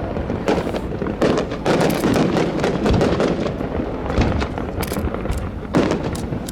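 Fireworks display: shells bursting in a rapid, dense run of bangs and crackles, with the loudest hits about half a second and a second and a half in and near the end.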